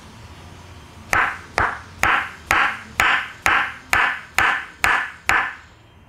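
Wooden mallet knocking on a wooden massage stick held against the shoulder: ten sharp knocks about two a second, each ringing briefly, starting about a second in.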